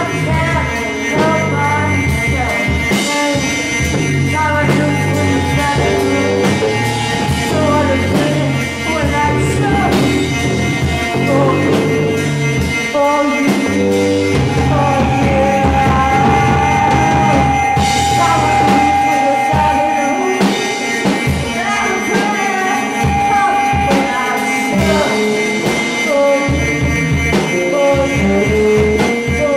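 Live rock band playing loud: guitar and drums, with a held high note sustained for several seconds about halfway through.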